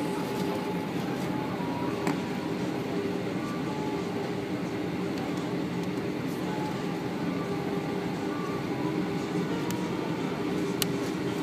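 Steady hum in the cabin of an Airbus A340-600 from its Rolls-Royce Trent 500 engines at low taxi thrust, heard over the wing, holding an even pitch without spooling up. There is a faint tick about two seconds in and another near the end.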